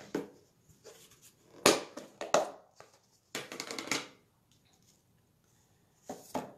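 Hands handling crafting supplies on a desk: a few short knocks and clatters as a stamp pad is set down and a plastic tub is picked up and moved, with a short crinkling rustle about three and a half seconds in.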